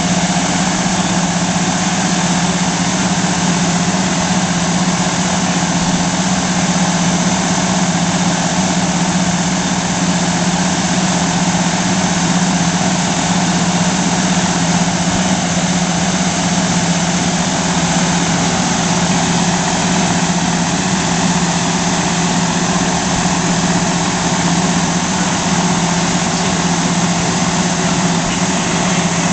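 The Detroit Diesel Series 60 inline-six diesel of a 2004 Seagrave pumper fire engine idling steadily, with an even low hum.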